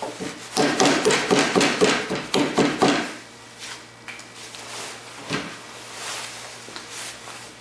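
Steel chisel working a white pine tenon: a quick run of about a dozen short, sharp scraping strokes over some two and a half seconds, then quieter handling with a single knock about five seconds in.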